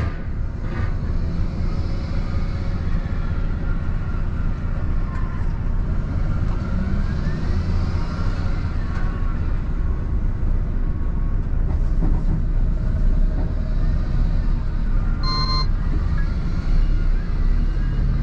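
Renault T480 truck's six-cylinder diesel engine idling steadily as a low rumble heard inside the cab. A short electronic beep comes about fifteen seconds in.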